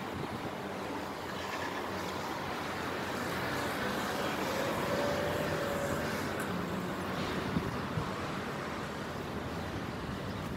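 A car passing along the street: tyre and engine noise that swells to a peak about halfway through and then fades.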